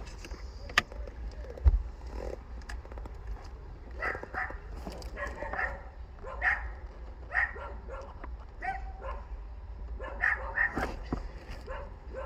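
A dog barking over and over in short barks and yips, starting about four seconds in. Before that there is a sharp knock and a few clicks.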